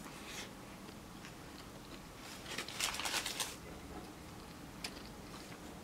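Mouth sounds of someone eating a McDonald's chicken sandwich: quiet chewing, with a crackly crunching stretch about a second long near the middle and a few small clicks near the end.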